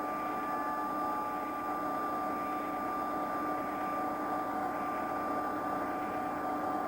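Steady mechanical drone with a constant high whine running through it, unchanging throughout.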